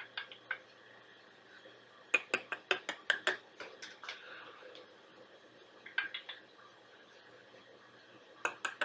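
Sharp clicks and taps on something hard, coming in quick runs of several a second. There are four groups, the longest and loudest just after two seconds in and another near the end.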